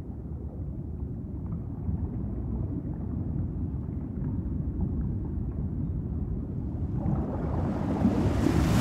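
Low, muffled underwater rumble, steady, swelling louder and brighter over the last two seconds.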